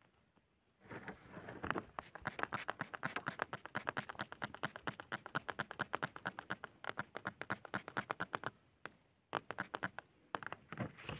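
Water poured onto dry soil while fingers scrape the wet dirt from around a stone: a fast run of crackly scratches and splashes. It pauses about eight and a half seconds in, then comes back in two short bursts.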